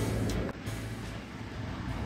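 Background music with a bass-heavy beat that drops in level about half a second in, continuing more quietly.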